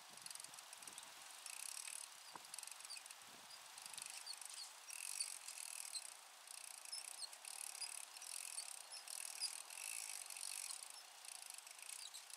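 Faint whirring of a spinning fishing reel being cranked in spurts.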